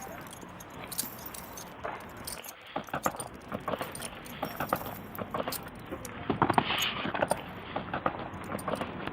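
Handling noise: a run of light clinks and jangles, with the densest and loudest cluster about two-thirds of the way through.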